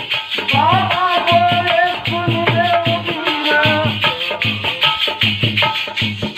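Phag, a Holi folk song: a man's voice sings through a microphone over a hand drum beating a steady rhythm, with constant high jingling percussion.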